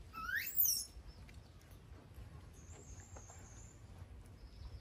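A baby monkey gives a short, high squeal that rises in pitch, lasting under a second at the start. A faint, thin high tone follows in the middle.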